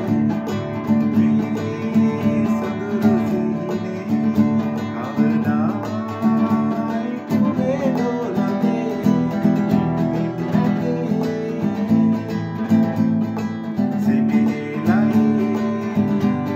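Nylon-string classical guitar strummed in a simple steady rhythm on basic open chords, with a man singing over it.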